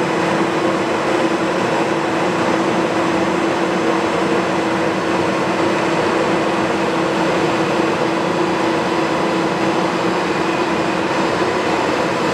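Leblond 3220 heavy-duty engine lathe running under power, its carriage on power feed: a steady mechanical whir of the drive and gearing with a constant hum.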